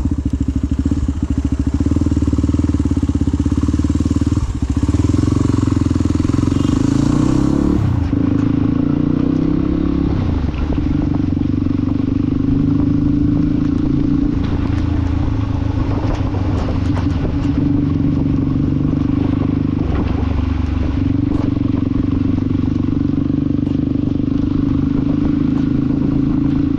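Motorcycle engine running steadily under way, with the revs dipping and rising again about eight to ten seconds in.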